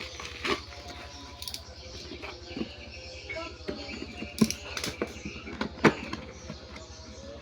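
Scattered clicks and knocks of objects being handled, with two sharper knocks about four and a half and six seconds in, over a steady low hum.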